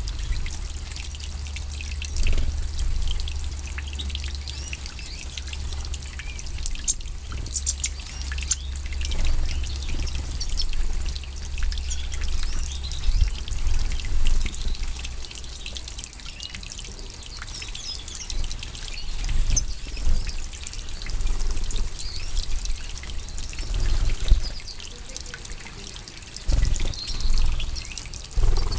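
Water trickling and splashing as European goldfinches of the large 'major' race bathe in a shallow pool, with short high chirps from the birds throughout.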